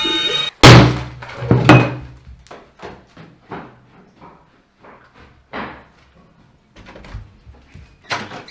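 Two heavy thuds about a second in, then a run of footsteps fading away, and a sharp bang near the end as a wooden door is reached.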